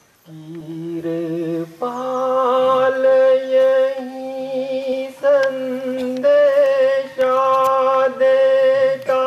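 Devotional bhajan being sung: a voice holding long, slightly wavering notes in phrases a second or more long, over steady lower drone tones.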